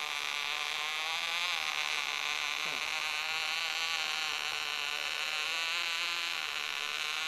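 Vintage OK Cub .049 two-stroke glow engine buzzing steadily on a radio-controlled glider in flight, its pitch wavering slightly up and down. It is a gummed-up motor.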